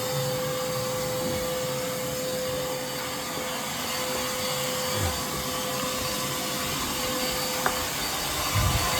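Vacuum hooked up to a dryer vent duct running steadily, drawing air and lint through the vent, with a steady hum-like tone over the rush of air. A single click about three-quarters of the way in, and a few low knocks near the end.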